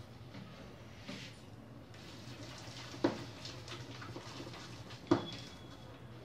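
Ground urad dal batter being beaten by hand in a bowl, whipping air into it so the medu vadas come out soft: faint quiet strokes with two sharp knocks about two seconds apart, over a low steady hum.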